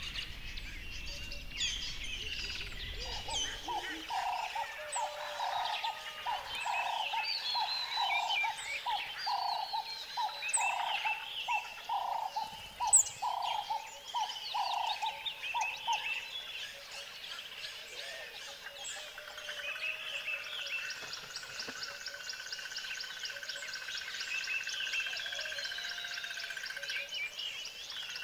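Many birds chirping and singing together, a dense mix of short high calls. In the first half a lower call repeats about once a second; in the second half a steady whistling tone and a fast high trill join in.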